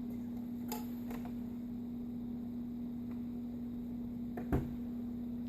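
Steady low hum, with two soft clicks, one about a second in and one near the end.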